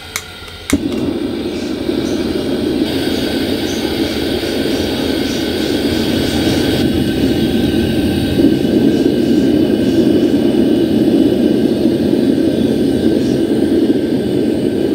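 Gas burners of a homemade metal-melting furnace lighting with a sudden whoosh under a second in, after a sharp click, then burning with a steady loud rush that slowly grows louder as the gas is turned up.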